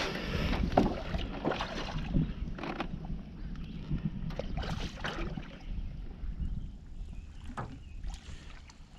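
Scattered knocks and clatters of gear and handling inside a small john boat, over a low wind rumble on the microphone; the knocks thin out and grow quieter toward the end.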